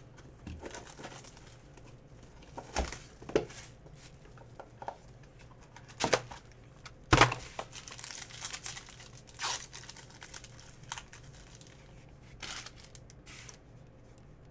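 A trading-card pack wrapper from a 2018-19 Panini Court Kings basketball box being torn open and crinkled by hand, with scattered sharp crackles and taps. The loudest tear comes about seven seconds in.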